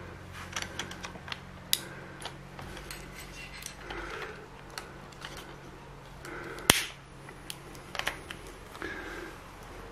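Scattered small clicks and knocks of hard plastic and metal parts being handled: a CNC axis carriage and its cable drag chain being worked on an aluminium rail. The sharpest and loudest click comes about two-thirds of the way through, over a faint steady low hum.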